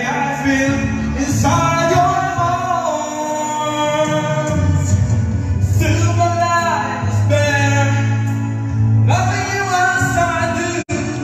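A contestant singing a song over a music backing track, with long held notes that bend in pitch. The sound drops out for an instant near the end.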